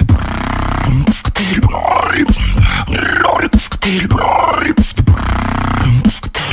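Solo beatboxing: sharp mouth-made kick and snare hits about every 1.2 s over a low buzzing vocal bass, with warbling, pitch-gliding vocal effects in between.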